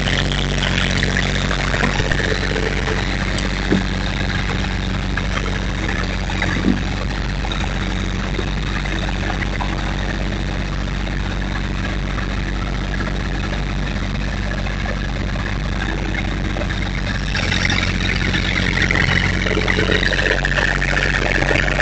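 Massey Ferguson subcompact tractor's diesel engine running steadily close by, growing louder about three-quarters of the way in. Two light knocks a few seconds in.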